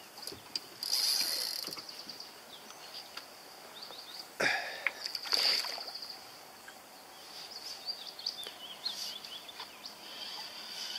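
Water splashing and sloshing at the surface next to a small boat as a hooked pike swirls on the line, with a few louder splashes about a second in and again between four and six seconds in.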